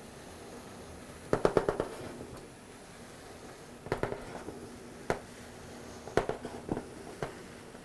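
Paper release liner crackling in clusters of quick snaps as it is pulled back off the adhesive board while the print feeds through a roll laminator, over a faint steady hum from the laminator. The biggest cluster comes about a second and a half in, with more near four seconds and toward the end.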